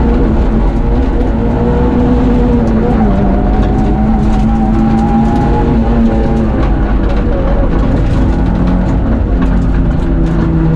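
Rally car engine heard from inside the cabin, running steadily under way; its note rises a little, eases back, then settles lower near the end, with light rattles and ticks over the top.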